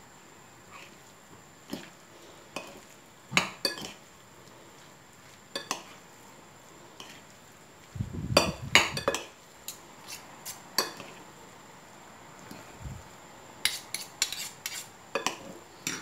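Metal forks clinking and scraping against a ceramic bowl while stirring a soft egg-and-tuna filling, in irregular clinks. A cluster of louder knocks comes about halfway through, and a quicker run of clinks comes near the end.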